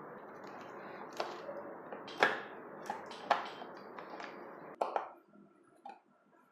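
Traxxas VXL-8S ESC being handled and fitted into the X-Maxx's plastic chassis: a few light plastic clicks and knocks, roughly one a second, over a steady hiss that cuts off suddenly about five seconds in.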